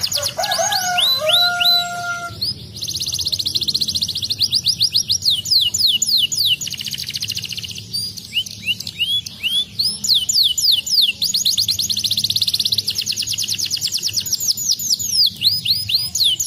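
Canary singing a long continuous song: very fast trills alternating with series of separate falling chirps. In the first two seconds a lower, held whistled note sounds under the trills.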